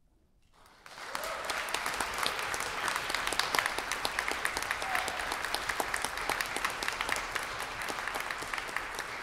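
Concert audience applauding, the clapping breaking out about a second in after a brief silence at the end of the piece.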